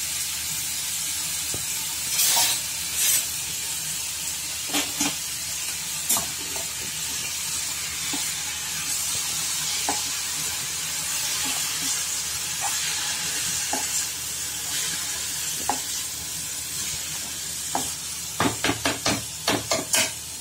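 Finely chopped vegetables sizzling steadily in oil in a kadai while a steel spoon stirs them, scraping and clinking against the pan now and then. Near the end comes a quick run of clinks.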